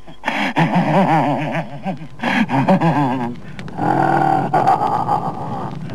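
A voice crying out in long, wordless, wavering wails, then one cry held at a steadier pitch from about four seconds in.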